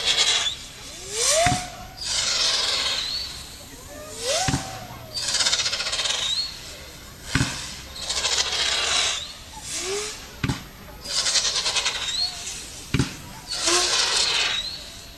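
Consumer battery fireworks firing shot after shot: a sharp thump at each launch, about every three seconds, followed by a second or so of hissing crackle, with short rising tones among the shots.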